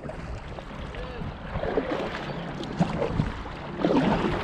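Water sloshing and splashing around a plastic fishing kayak as a hand paddle dips and pulls through it a few times, a little louder near the end.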